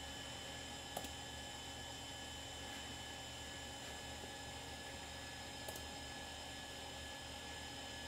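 Steady electrical hum and fan noise of a running desktop computer, with a few faint steady whining tones, and two short mouse clicks, about a second in and near six seconds.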